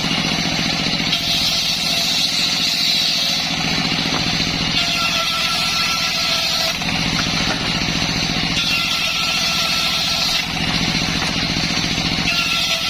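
Circular sawmill rig running steadily while it rips waru wood into batten stock, its sound growing brighter and easing again about every 3 to 4 seconds as pieces go through the blade.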